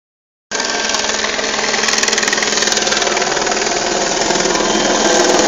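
Helicopter rotor and engine, a loud rapid chopping throb that starts about half a second in and grows steadily louder as the helicopter comes in to land.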